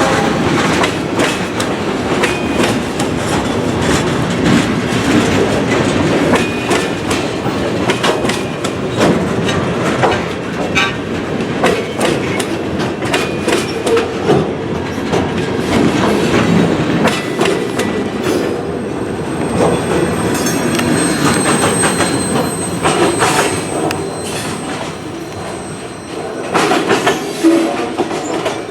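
Freight train cars of a Conrail local rolling past, wheels clattering over the rail joints in quick, irregular clicks, with faint high-pitched wheel squeal now and then.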